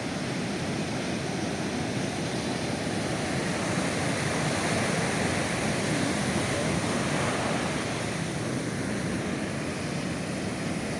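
Sea waves washing on a beach: a steady rush of surf that swells slightly around the middle.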